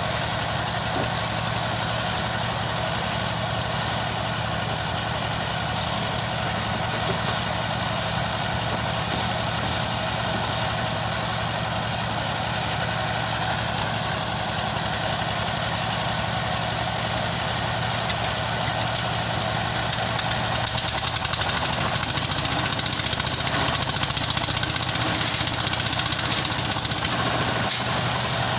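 A heavy engine running steadily at idle, likely construction machinery. About two-thirds of the way through it grows louder, with more hiss and clatter on top.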